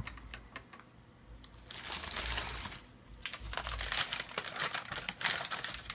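Packaging crinkling and rustling as the next gadget is unwrapped, with small clicks and crackles; it is quieter in the first second and a half, then comes in stretches through the rest.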